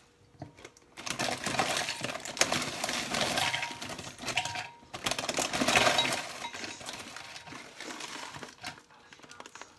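Nacho corn chips poured from their bag into a glass chopper bowl: a dense crackling rattle of chips landing on the glass, with the bag rustling. It comes in two pours, then a few softer crackles near the end as the chips are pressed down into the bowl.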